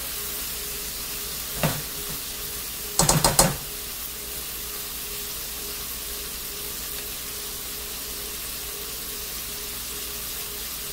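Sliced Italian sausages with pepper and onion strips sizzling in olive oil in a pot, a steady frying hiss. A utensil knocks against the pot once a bit under two seconds in, then clatters against it several times around three seconds in.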